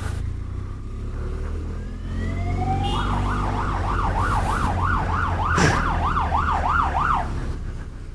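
Police car siren winding up in pitch, then wailing quickly up and down, about two and a half cycles a second, and cutting off abruptly about seven seconds in. Under it runs the low rumble of the motorcycle riding in traffic.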